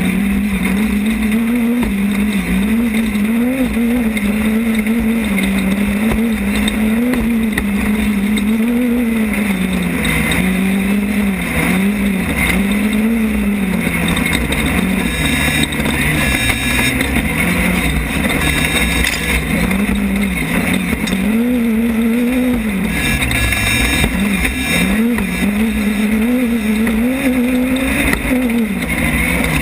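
Off-road race car's engine running hard, heard from on board, its pitch rising and falling every second or two with the throttle, over a constant rush of wind and road noise.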